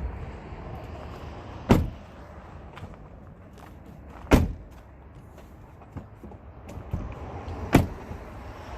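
Three heavy clunks from a Ford F150's passenger door, a few seconds apart.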